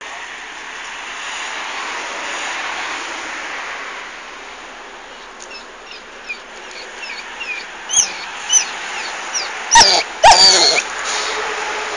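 A Weimaraner whining in short, high squeaks from about halfway through, building to several loud yelps near the end.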